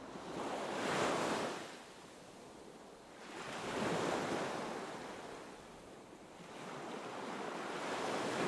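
Sea waves washing in, a rush of water that swells and fades three times, with a little wind.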